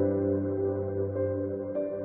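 Soft ambient background music: slow, sustained chords, with a new chord coming in at the start.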